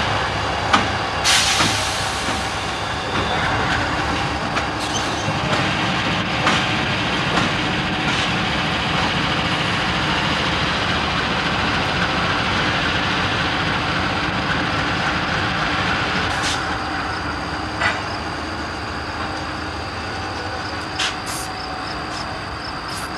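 Freight train led by GE Dash 8 diesel locomotives rolling past, with the engines running and the wheels rumbling on the rails. There is a short air hiss about a second in and a few scattered clicks, and the sound eases off slightly near the end.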